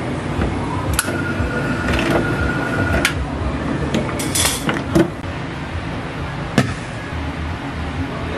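Drink can-sealing machine seaming a metal lid onto a plastic drink can: a click, a steady whine for about two seconds, another click, a brief hiss, then two sharp knocks, over a steady background hum.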